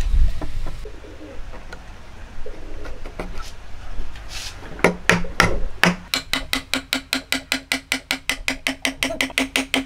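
Wooden mallet tapping a wooden key down into a mitered hardwood joint: a few separate knocks about five seconds in, then quick, even taps about four a second, each with a short ringing note from the wood. The boards knock as they are handled at the start.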